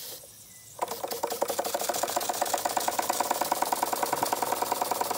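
Bing Vesuv toy live-steam engine, circa 1903, starting to run: it sets in abruptly about a second in with a fast, even beat of chuffs and mechanical clatter that keeps going.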